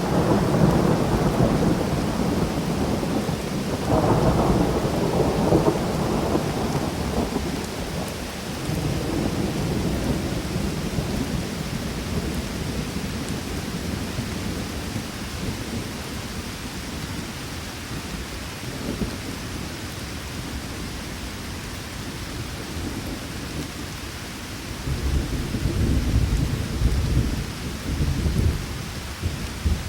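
Steady rain with rolling thunder: deep rumbles swell at the start, again about four seconds in, and once more late on, over an even hiss of rain.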